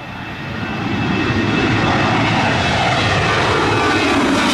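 Boeing 737 jet airliner passing close, its engines growing louder over the first second and then holding a loud, steady roar with a high fan whine.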